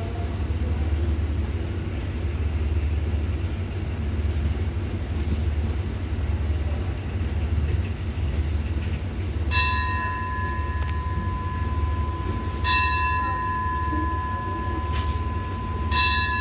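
Steady low hum of the stopped train. About halfway through, a bell is struck three times, roughly three seconds apart, its ringing holding on between strikes.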